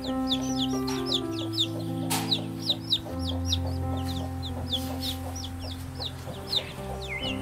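Chicks peeping: a steady run of short, high, falling peeps, several a second.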